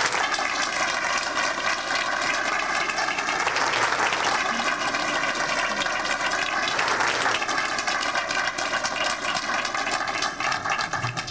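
Audience giving sustained applause to welcome a guest of honor.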